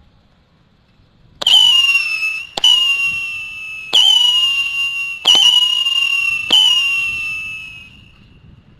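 Whistle siren firecracker firing five shots about a second and a quarter apart, each a sharp pop followed by a loud shrill whistle that sags slightly in pitch; the last whistle fades away near the end.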